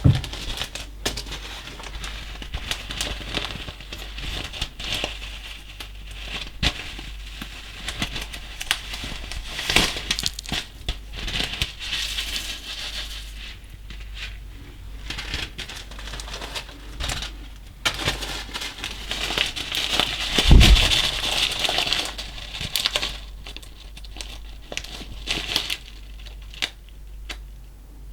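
Hands squishing and kneading slime mixed with small coloured particles, giving a run of irregular crackles, clicks and crinkling squelches, with one louder thump about three quarters of the way through.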